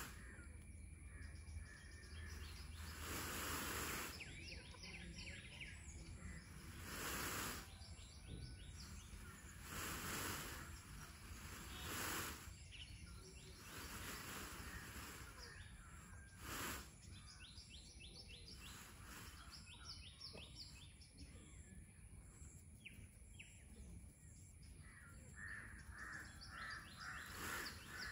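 Faint outdoor ambience: small birds chirping and calling in quick runs of short high notes, with a string of repeated calls near the end. About eight times a broad rustling noise swells for a second or so and fades.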